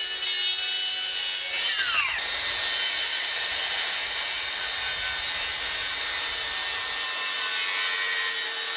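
DeWalt FlexVolt 60V cordless circular saw ripping a taper along a cedar board, its motor running steadily under load, with a brief falling whine about two seconds in.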